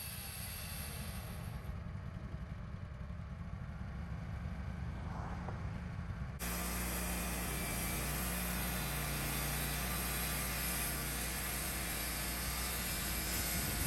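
Wood-Mizer LT15 portable band sawmill running with a steady engine hum; about six seconds in the sound jumps suddenly louder and brighter.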